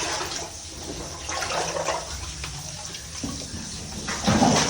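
Water sloshing and splashing as someone wades through a flooded mine passage, in uneven surges, with a louder splash near the end.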